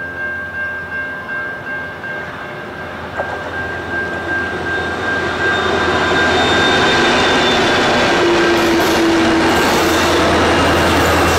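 Aurizon grain train's diesel locomotives, vintage ALF22 leading with FQ-class units behind, approaching and passing close by. The engine rumble grows louder over the first six seconds, then holds steady as the locomotives go past, with a thin steady high whine over the top.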